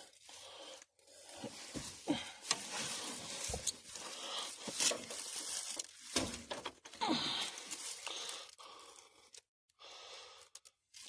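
Irregular scraping, rustling and light knocking of hands and tools working blind around the starter on the underside of a truck, with short pauses between the movements.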